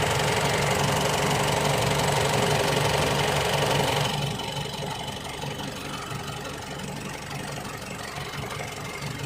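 Isuzu D-Max 3.0 four-cylinder diesel engine running, loud for about four seconds, then dropping suddenly to a quieter idle. The engine has a low-power, hard-starting fault that the mechanic traces to a fuel pressure relief valve stuck open, so it cannot build pressure.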